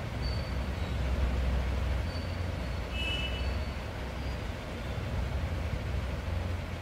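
A steady low rumble of background noise with a faint hiss, and a couple of faint short high tones about three seconds in.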